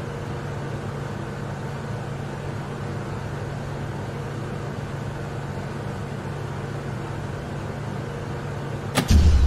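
Steady low electrical hum with a faint hiss. Near the end a sharp click as the rotary switch on a steel cabinet door is turned, followed at once by a sudden loud low rumble.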